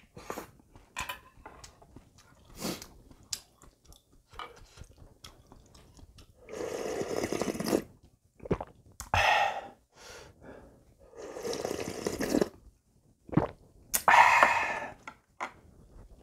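A man slurping spicy ramen broth: four long, loud slurps in the second half, with small clicks of chopsticks and a spoon against the dishes and soft mouth sounds between them.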